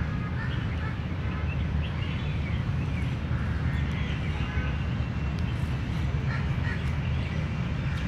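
Outdoor park ambience: a steady low rumble with faint, scattered bird calls over it.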